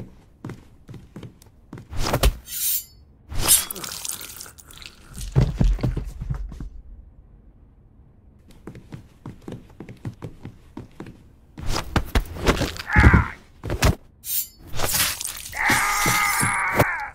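Irregular thuds, knocks and crashing impacts, some in quick clusters, with a held pitched tone near the end.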